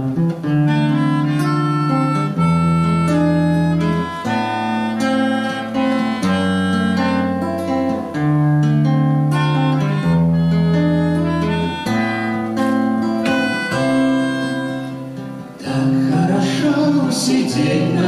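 Instrumental interlude of a folk song: acoustic guitar accompaniment under a flute playing a melody of held notes, with the ensemble's voices coming back in near the end.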